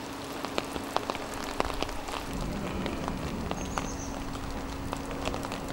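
Rain falling, with many scattered drops tapping sharply close to the microphone. A steady low hum comes in about two seconds in.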